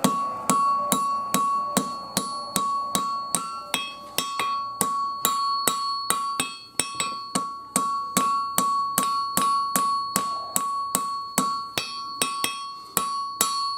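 Blacksmith's hammer striking hot 5160 steel on an anvil, about three blows a second with a couple of brief pauses, the anvil ringing a steady bell-like tone with each blow: drawing the knife blade out to a point.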